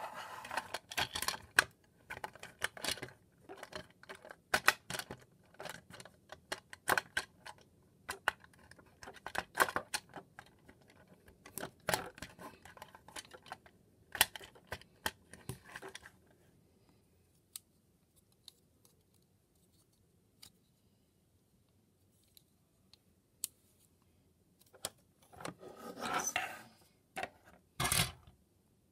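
Hard plastic parts of a Transformers Siege Ultra Magnus action figure clicking, snapping and rattling as they are handled and folded into place, with frequent sharp clicks for about sixteen seconds. Then it goes mostly quiet with a few single clicks, followed by a rustle and a louder knock near the end.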